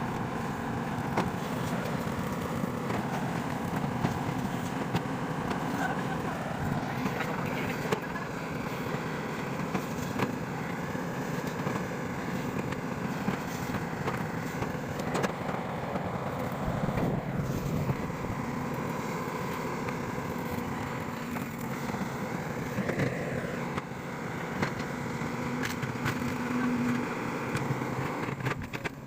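Excavator diesel engines running steadily under hydraulic work, with scattered metallic clicks and knocks. The engine pitch swings down and back up a couple of times around the middle as the load changes.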